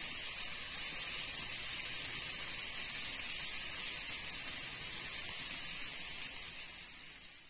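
Model train running past on the layout track: a steady rushing hiss of wheels and motor that fades near the end as the last car goes by.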